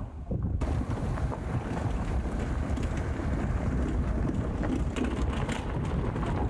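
Campervan driving along a dirt road: a steady low rumble of the vehicle and its tyres, with wind buffeting the microphone. It sets in abruptly about half a second in.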